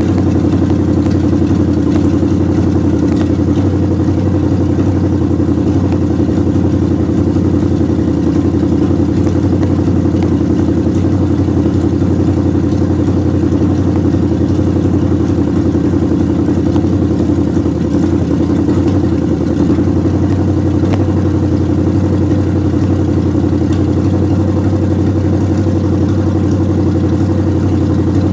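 1929 Chrysler engine running steadily at idle while warming up, with an even, unchanging pitch.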